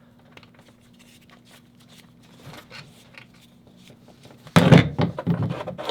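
Screwdriver and small-parts handling while unscrewing the terminal screws of an electrical plug: faint clicks and scrapes, then a louder run of knocks and rattling near the end.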